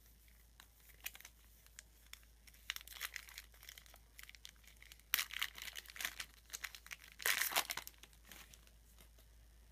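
Foil wrapper of a trading-card pack crinkling and tearing as it is pulled open by hand, in scattered crackles with two louder rips about five seconds in and again near seven and a half seconds.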